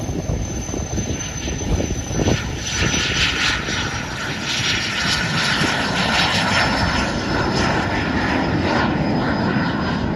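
Cirrus Vision SF50 VisionJet's single Williams FJ33 turbofan at takeoff power as the jet rolls, lifts off and climbs away: a high whine that slowly drops in pitch over a rushing jet noise that grows louder a few seconds in.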